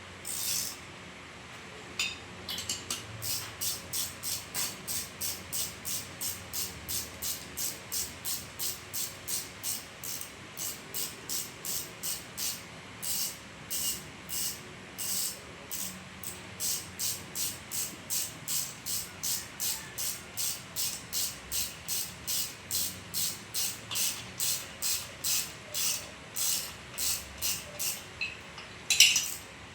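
Ratchet wrench worked in short back-and-forth strokes, about two clicking bursts a second with a few brief pauses, tightening down the cylinder head nuts on a two-stroke motorcycle engine.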